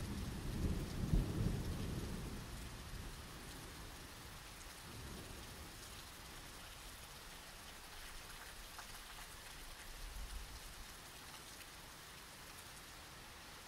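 Thunderstorm: a low thunder rumble over the first few seconds that dies away, then steady rain hiss, with a fainter rumble of thunder about ten seconds in.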